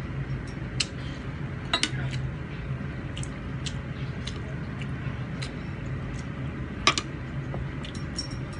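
Scattered light clinks of a spoon, plates and clam shells while eating, with a few sharper clinks about a second in, about two seconds in and near seven seconds, over a steady low hum.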